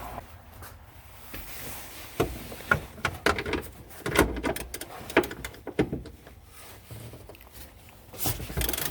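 Irregular clicks and knocks of hand tools working on a car's rear strut top-mount nuts, with a quicker run of clicking near the end.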